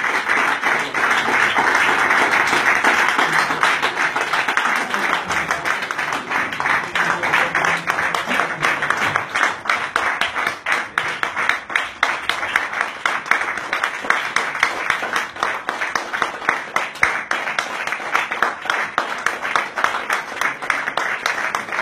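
Audience applauding continuously, many hands clapping at once in a dense patter that thins a little in the second half into more distinct separate claps.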